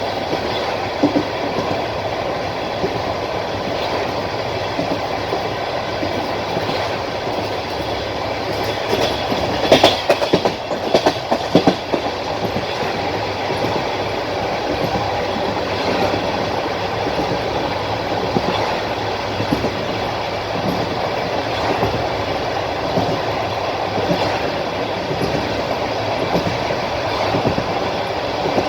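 Wheels of a moving passenger train clacking over the rail joints, heard from the carriage over a steady running rumble. A louder run of sharp clacks comes about ten seconds in.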